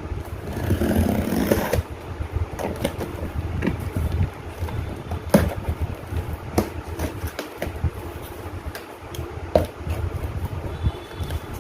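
Cardboard packaging box being handled and opened: rustling at first, then scattered sharp knocks and clicks, over a steady low background rumble.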